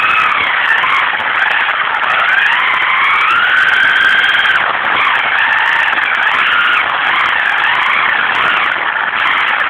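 Brushless electric motor of a 1:10 scale RC car whining loudly as it drives, heard from the car itself. The pitch keeps rising and falling with the throttle, over a steady rushing noise.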